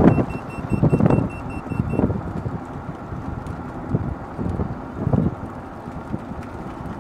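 Club Car DS electric golf cart driving at speed, wind buffeting the microphone over the rumble of the tyres on the road. For the first two seconds a dash-mounted GPS speedometer sounds a run of short high beeps, its over-speed alert, which is set for 15 mph.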